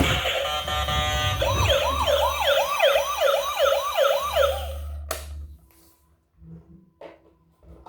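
Electronic toy siren, a fast yelp that rises and falls about three times a second for around three seconds and then cuts off. A click follows. Music plays for the first second.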